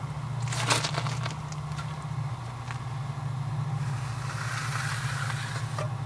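Steel concrete edging tool scraping along the edge of a freshly poured concrete slab: one short scrape about a second in and a longer scrape near the end. A steady low hum runs underneath.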